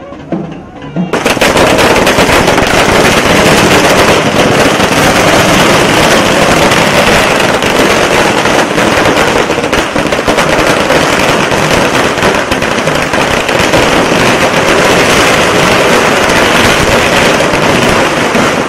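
A long string of firecrackers going off, a dense rapid crackle of sharp bangs like machine-gun fire that starts abruptly about a second in and keeps going without a break.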